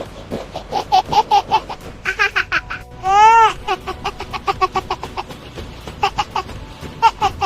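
Baby laughing in quick runs of short giggles, with a high squeal that rises and falls about three seconds in, over background music.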